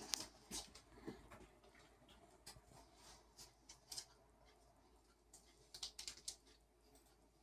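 Faint, irregular light clicks and taps in small clusters, against near silence.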